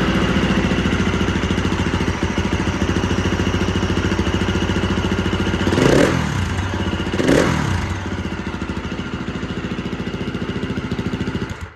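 2021 KTM 350 EXC-F's single-cylinder four-stroke engine idling, blipped twice about six and seven and a half seconds in, then stopping abruptly near the end.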